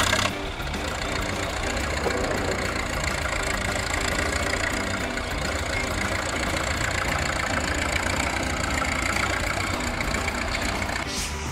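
A vehicle engine running steadily, starting abruptly and stopping abruptly.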